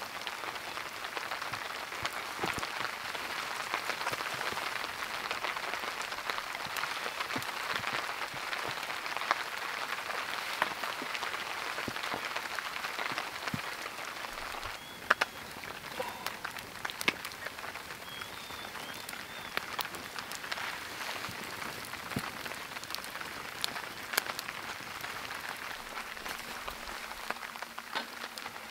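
Heavy rain falling on a tarp shelter, with many sharp individual drops striking close by. The rain eases slightly about halfway through.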